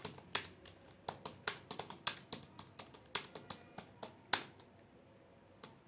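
Keyboard keys clicking as someone types, irregular keystrokes a few per second, with one sharper click a little over four seconds in; the typing thins out after that.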